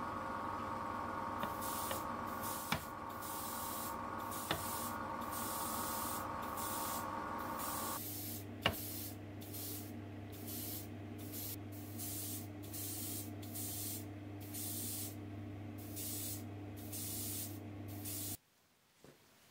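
Airbrush spraying paint in short bursts of hiss, about one a second, starting a second and a half in. Beneath it runs a steady motor hum that changes pitch partway through and cuts off suddenly near the end.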